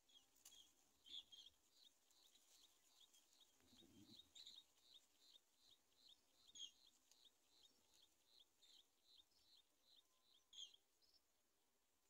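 Greater coucal nestlings begging: a faint, even series of short high chirps, about three a second, that stops shortly before the end.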